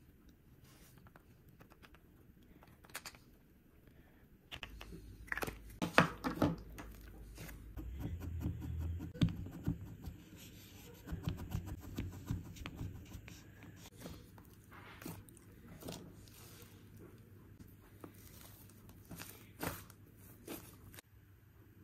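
Soft slime being pressed and squished, with dense sticky clicks and crackles. It starts about four seconds in and is busiest in the middle.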